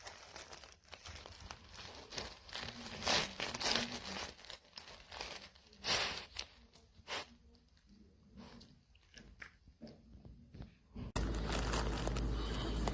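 A dog crunching and chewing dry treats in irregular bites. About eleven seconds in it cuts abruptly to a steady low hum.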